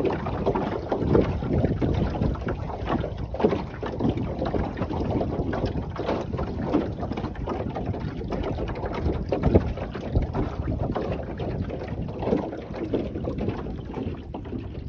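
Gusty wind buffeting the microphone aboard an Oughtred Penny Fee, a small wooden sailing dinghy under way, with water washing along the hull. It is an uneven rushing noise with frequent short gusts.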